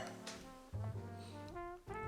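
Background music with brass instruments, trombone-like, playing sustained notes over a bass line.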